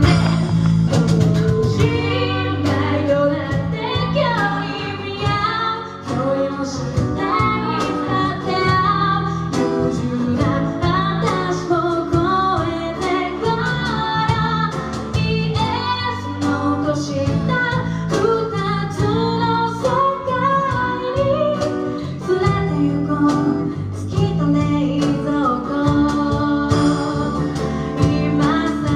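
Live song: female vocals singing in two-part harmony over a steady instrumental accompaniment.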